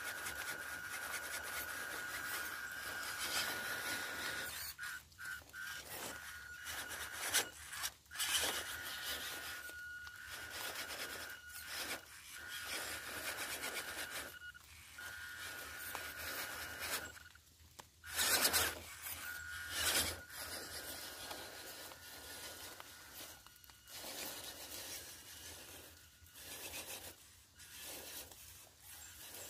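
Electric 1:16 RC crawler pickup truck climbing a steep dirt bank: a thin, steady motor whine that stops and restarts every few seconds as the throttle is worked, over tyres scrabbling and rubbing through dirt, roots and dry leaves. A couple of louder scrapes come about two-thirds of the way through.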